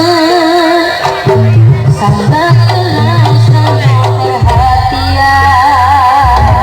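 Live Javanese jaranan band music: a wavering, vibrato-laden melody line over kendang hand-drum strokes and a steady bass.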